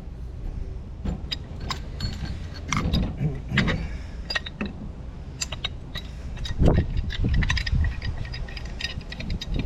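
Metal hand tools and pipe fittings clinking and knocking, with many sharp metallic clicks and a heavier knock about two-thirds of the way through.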